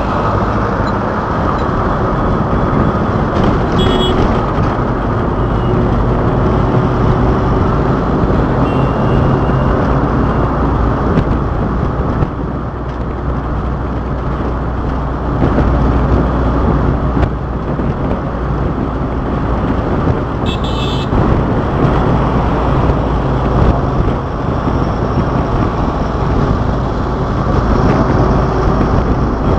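Steady engine and road noise heard from a vehicle moving along a busy city road, with a heavy low rumble. A short horn toot sounds about two-thirds of the way through.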